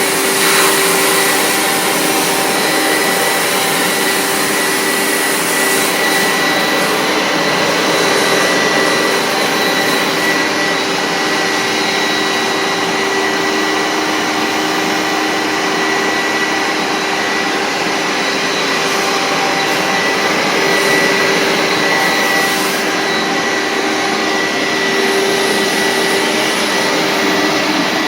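Hoover SteamVac Widepath carpet extractor running steadily under suction: a loud, even motor rush with a steady high whine.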